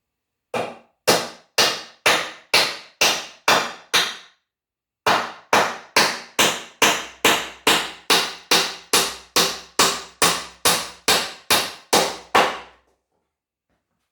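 Hammer driving nails into a wooden frame board: about eight steady blows, a brief pause, then a longer run of about twenty quicker blows. The nail hits a knot in the board, which changes the sound and bends the nail.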